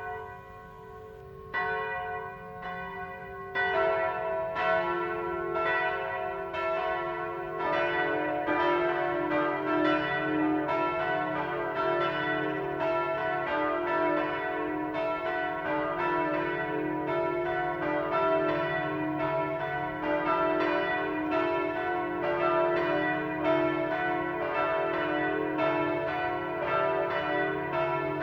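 Full peal of several parish church bells ringing, each striking again and again with long ringing tones. More bells join about two seconds in, again about four seconds in, and near eight seconds, building to a dense run of overlapping strikes.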